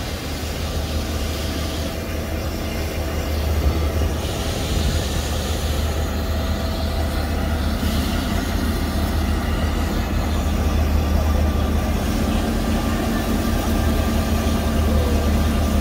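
Irish Rail 201 class diesel-electric locomotive idling, a steady low drone with a few steady tones above it, growing louder toward the end. Steam hisses from the standing steam locomotive at times.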